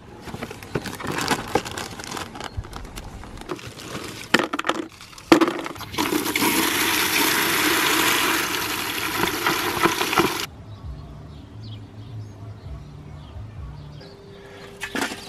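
Dry mesquite and hickory wood chips clattering out of their box into a plastic bucket, then a garden-hose spray nozzle hissing water into the bucket for about four seconds before cutting off suddenly.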